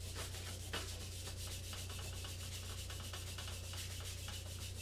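Oil being rubbed by hand over the bottom of a cast iron wok in quick, repeated strokes, with a steady low hum beneath; this is the wok being given a thin coat of oil for re-seasoning.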